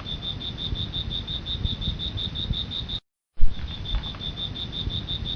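An insect calling in a steady pulsing train, about five high-pitched pulses a second, over low wind rumble on the microphone. The sound cuts out completely for a moment about three seconds in, then picks up again.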